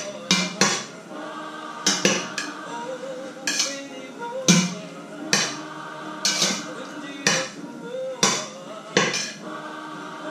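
A metal utensil knocking and scraping against the side of a stainless steel pot as food is stirred and beaten, in sharp strikes about once a second. Music with singing plays behind it.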